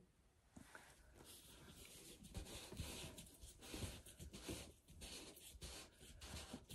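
Faint rustling and light clicking of gloved hands handling plastic paint containers, starting about half a second in.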